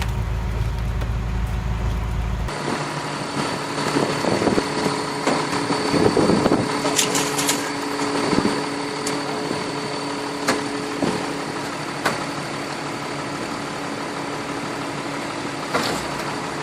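A truck engine runs steadily with a constant machine whine while furniture is crushed. Scattered cracks and knocks come mostly in the first half, with a few single ones later.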